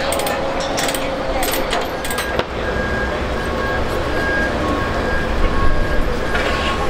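Sharp metallic clinks of tie-down chain handled at the dozer's tracks for the first couple of seconds. Then a diesel engine rumbles steadily, with a short electronic warning beep repeating, typical of a forklift's motion alarm.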